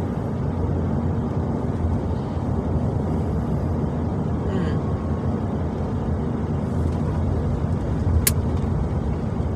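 Steady road and engine rumble inside a moving truck's cab, with a single sharp click about eight seconds in.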